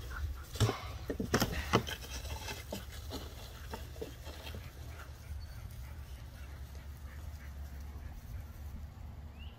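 Dogs playing tug-of-war over a rope toy with a plastic bottle on the end: a few sharp knocks and scuffles in the first two seconds, then quieter play noises over a low steady rumble.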